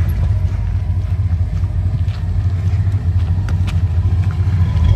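Old truck's engine running with a steady low rumble just after being started.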